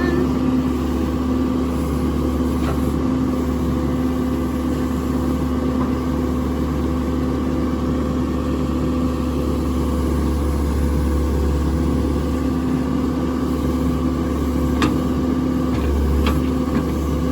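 Engine of a digging machine running steadily as it excavates, a constant mechanical hum with a few faint knocks.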